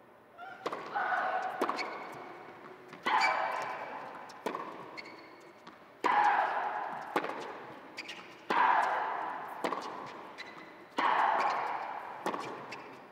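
Tennis rally: racket strikes on the ball alternate about every one and a half seconds, and every other stroke comes with a loud grunt. The grunts ring on in the reverberant indoor arena.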